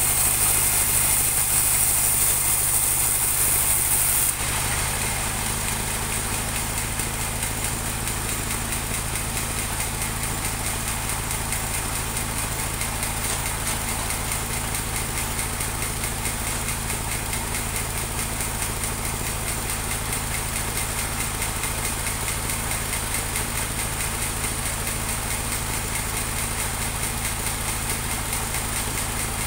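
Engine of a portable band sawmill running steadily at idle, with a fast even beat. About four seconds in, a high hiss cuts out and the overall level drops slightly.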